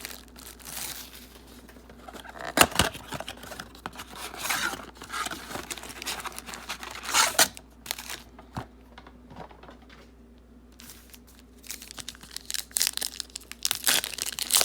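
Packaging of a box of football trading card packs being torn open and the pack wrappers crinkled, in irregular bursts. There are sharp tears about two and a half and seven seconds in, a quieter lull after that, and a run of dense crinkling near the end.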